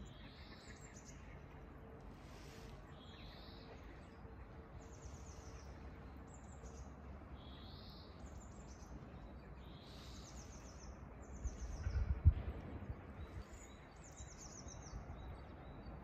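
Small songbirds singing, short high phrases repeated every second or two. A brief low rumble about twelve seconds in is the loudest moment.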